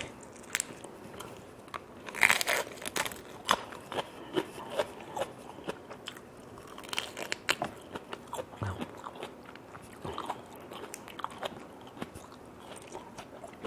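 Close-up chewing and crunching of grilled prawns with fresh lettuce: many short, irregular crunches, loudest about two seconds in.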